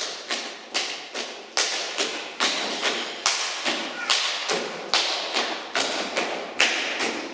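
Hungarian folk dancers slapping their boots and legs with their hands and stamping on a wooden stage floor: a steady rhythm of sharp strikes, about two to three a second.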